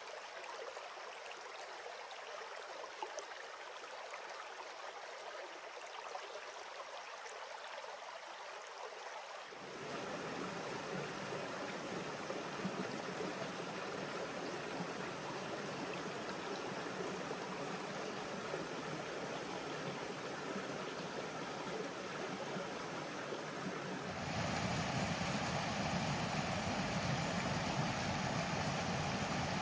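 Rocky mountain creek flowing steadily over stones. It jumps louder about ten seconds in and again near the end, where a small cascade rushes fuller and deeper.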